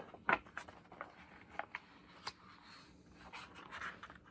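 A hardcover picture book being handled and a page turned: a few faint taps and paper rustles, with a longer soft rustle near the end.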